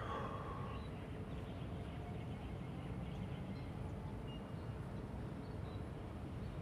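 Steady low outdoor background rumble, with a brief higher sound right at the start and a few faint high chirps.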